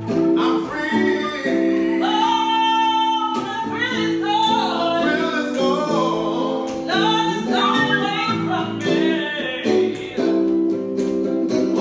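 Live slow minor blues: a singer's voice over a hollow-body electric guitar played through a small amplifier.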